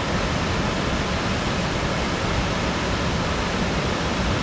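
Small waterfall rushing steadily, a constant roar of falling water.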